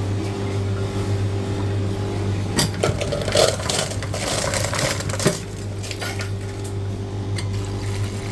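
Steady electrical machine hum, with a couple of seconds of clicking and clattering in the middle as cups or containers are handled.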